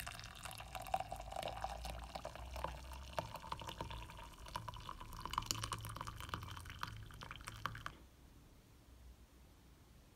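Hot coffee poured in a steady stream into a ceramic mug, splashing and trickling, the pitch of the filling sound rising as the mug fills. The pour stops about eight seconds in.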